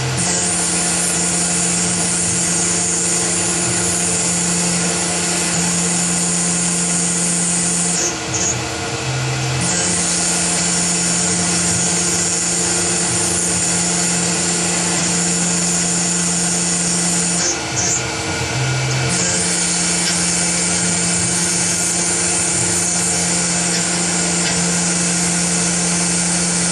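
CNC machine milling brass: a steady mix of spindle and cutting whine with several held tones. Twice, about eight and eighteen seconds in, the tones shift pitch for a second or so, then settle back.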